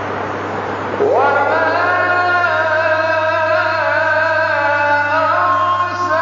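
Male Quran reciter chanting in tajwid style. About a second in, after a steady rush of noise, his voice rises into a long, held, ornamented note.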